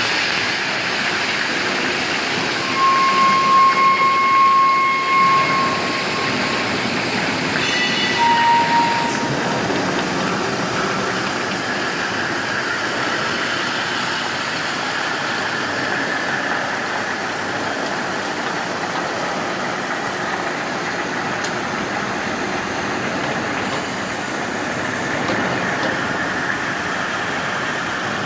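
Steady hiss of the oxy-gas cutting torches on a CNC strip-cutting machine with nine gas torches. Two high tones sound over it, one lasting a couple of seconds from about 3 seconds in and a shorter one about 8 seconds in.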